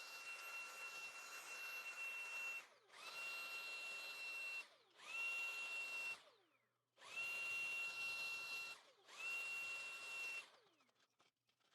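Small electric screwdriver or drill motor running in about five short bursts. Each burst spins up quickly to a steady high whine and winds down in a brief falling glide when released.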